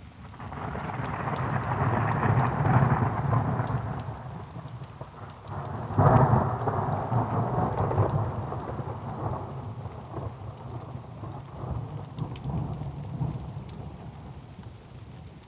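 Rain falling steadily with two rolls of thunder: the first builds and fades over the first few seconds, and a sharper clap about six seconds in rumbles away slowly.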